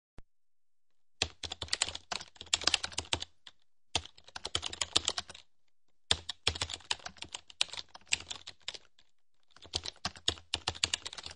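Rapid clicking in four bursts of one to three seconds each, separated by short pauses, with the even patter of keys being typed.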